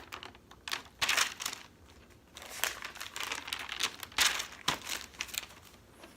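Paper pages being turned and rustled by hand, in several short irregular bursts of crinkling.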